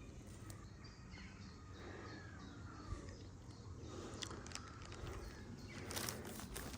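Faint bird calls over low outdoor background noise, with a brief rustle near the end.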